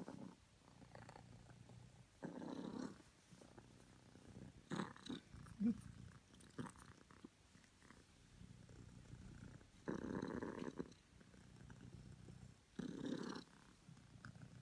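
A cream British longhair cat purring steadily at close range. Four louder rustles break in over the purr, about two, five, ten and thirteen seconds in.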